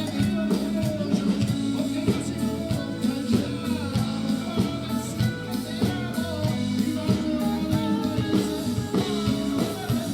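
Live rock band playing: electric guitar and bass over a drum kit, with singing.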